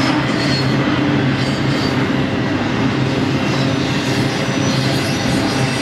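Double-stack container well cars rolling past on the track: a steady, loud rumble and rattle of wheels on rail, with brief high wheel squeals now and then.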